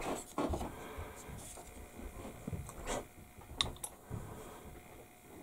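Handling noises of plastic model-kit parts and a glue bottle on a cutting mat: scattered small taps, rubs and clicks, with one sharp click about three and a half seconds in.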